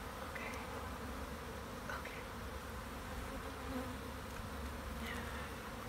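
Honeybees from a freshly opened package buzzing steadily as a swarm in the air and on the box.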